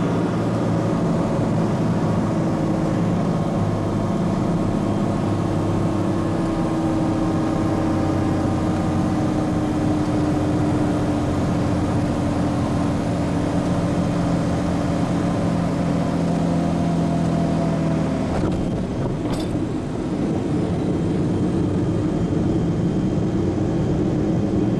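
Inside the cockpit, a Piper Malibu Mirage's turbocharged six-cylinder engine and propeller drone steadily on final approach. Near the end, after about 18 seconds, the engine's tone drops away and a brief knock is heard as the airplane touches down. A rough, even rumble follows as it rolls along the runway.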